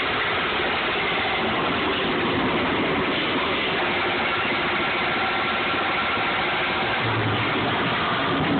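Steady mechanical noise like an engine running, unbroken and at an even level.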